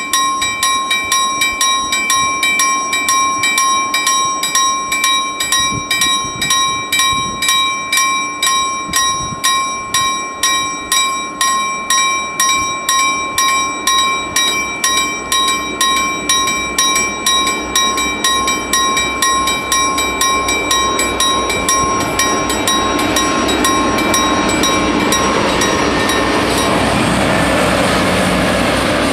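Level crossing bells ringing with rapid, even strokes, about three a second. Over the last several seconds the strokes give way to the rising noise of VR Dv12 diesel locomotives hauling a freight train up to the crossing.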